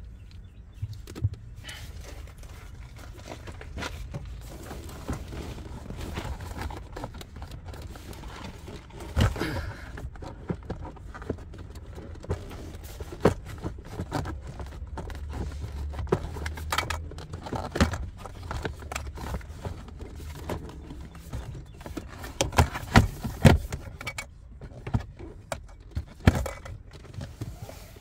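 Plastic lower dash trim panel being handled and fitted into place: irregular clicks, knocks and rattles, with clusters of sharper knocks in the second half.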